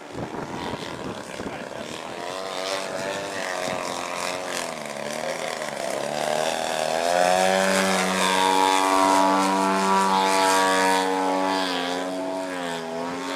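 Small aerobatic propeller plane's engine running through manoeuvres, its pitch rising and falling with the throttle. It grows louder and holds a steady note in the second half, then cuts off abruptly at the end.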